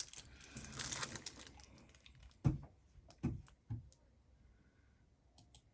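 Faint handling of small fidget toys: a soft rustle, then three light knocks about a second and a half in to two seconds later, as one toy is set down and the next picked up.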